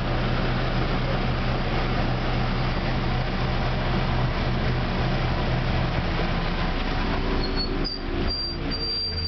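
Tram running along the track with a steady rumble and motor hum. Near the end the hum shifts in pitch and there is a short, high-pitched squeal.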